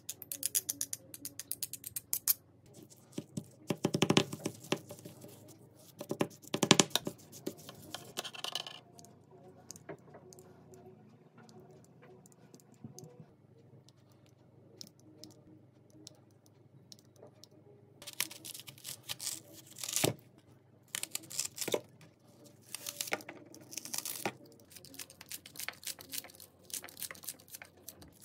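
Kitchen scissors and a multi-blade scissor chopper at work on food: rapid clicking of the blades at first, a few louder knocks against a ceramic bowl, then a quieter stretch. In the second half, dense crisp snipping as the scissors chop through raw onion.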